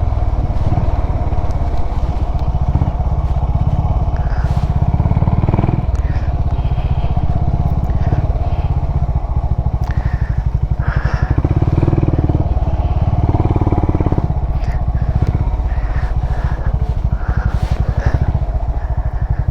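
Motorcycle engine running close to the microphone, a steady fast putter of firing pulses.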